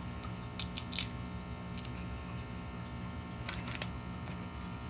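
A few sharp clicks of plastic LEGO pieces being handled and pressed together, the loudest about a second in, over a steady electrical hum.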